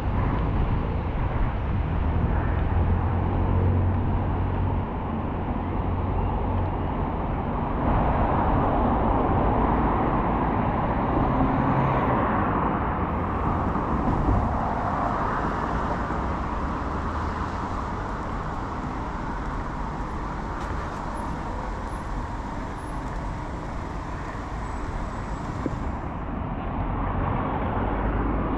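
Motor traffic running past on a road, a steady rumble of engines and tyres that swells about a third of the way in and eases off after the middle.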